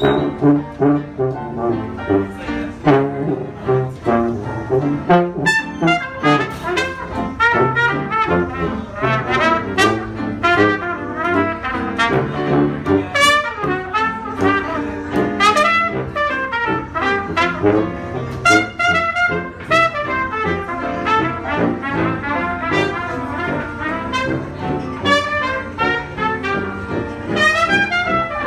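Small live jazz band playing: a trumpet carries the melody over an upright piano and a tuba bass line.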